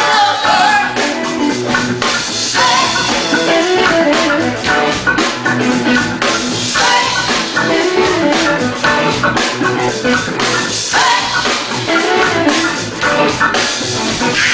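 Band music with guitar and a drum kit keeping a steady beat.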